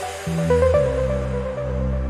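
Electronic music: sustained synthesizer notes over a deep held bass, with a new note coming in about half a second in.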